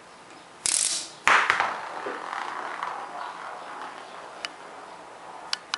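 Homemade Gauss rifle firing: a quick burst of sharp metallic clacks as steel ball bearings strike neodymium disc magnets in a chain, then a loud crack about a second in followed by a rattling, ringing clatter that dies away over a second or two. A few faint ticks follow near the end.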